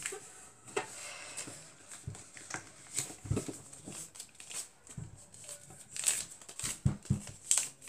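Folded paper airplane being creased flat and handled on a wooden tabletop: scattered rustles and crinkles of the paper, with a few knocks of hands and paper against the table.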